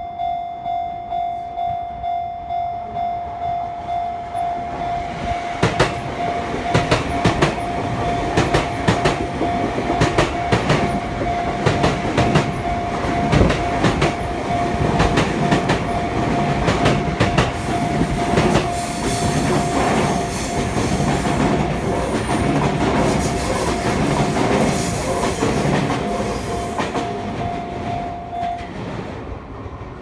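Japanese level-crossing warning bell dinging steadily, about one and a half times a second, while a Sotetsu electric commuter train passes close by, its wheels clattering over rail joints. The bell stops near the end as the train clears.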